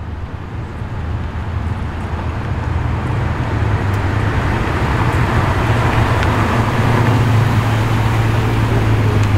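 HSV Commodore's V8 engine running at low revs as the car rolls slowly past, a steady low exhaust note growing louder as it comes closer.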